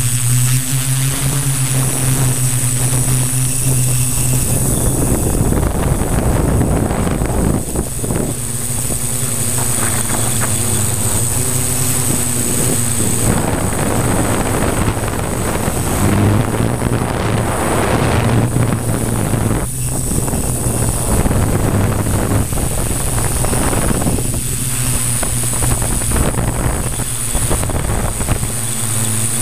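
Multirotor drone's electric motors and 15x5.5 propellers running in flight, recorded on board: a steady whirring hum with a high whine above it, shifting slightly in pitch as the motors adjust. From a few seconds in, strong gusty wind rushes over the microphone.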